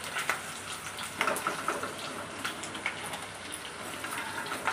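Potato wedges frying in oil in an aluminium kadhai: a steady sizzle with scattered sharp crackles. The wedges are fried golden and are being scooped out with a metal spoon.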